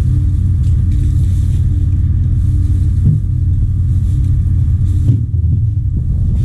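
An engine running steadily with a low, even rumble, with a light knock about three seconds in and another about five seconds in.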